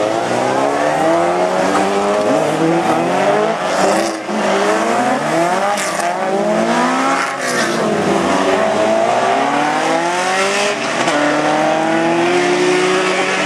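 Several autocross racing cars, open-wheel special buggies among them, running hard past on a loose dirt track. Their overlapping engine notes keep rising and falling through gear changes. A few short sharp cracks come in the middle.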